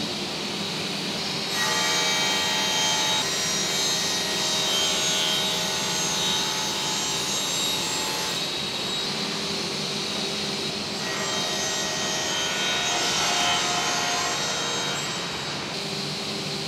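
Sliding table saw running steadily, its blade cutting through 18 mm Baltic birch plywood twice: two cuts of several seconds each, starting about 1.5 s and about 11 s in, each a high ringing whine over the saw's steady hum.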